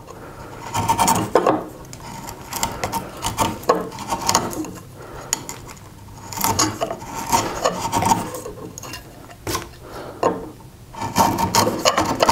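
Bench chisel paring the bottom of a housing joint in oak, hand-pushed strokes scraping and slicing off shavings while the depth is fine-tuned. The strokes come in bunches with short pauses between.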